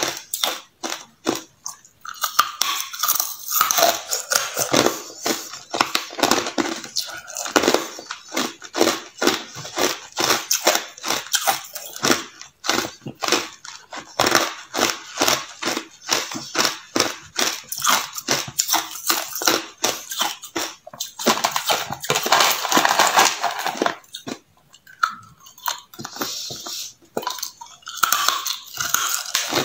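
Hard clear ice being bitten and chewed, a rapid run of sharp cracking crunches with a couple of short pauses.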